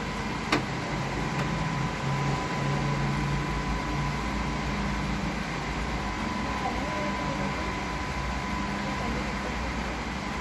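Canon imagePROGRAF TM large-format printer running as it feeds out a nozzle check print: a steady mechanical hum with a thin steady whine, and a single click about half a second in.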